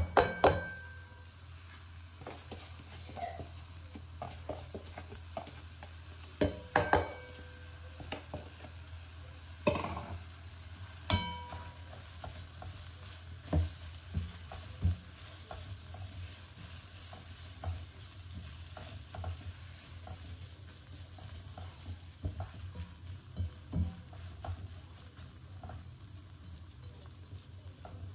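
Raw rice frying in oil with onions and whole spices in a non-stick wok, sizzling softly while a spatula stirs and scrapes it, with scattered knocks of the spatula against the pan, the loudest right at the start. This is the rice being toasted in the oil before water goes in for a vegetable pulao.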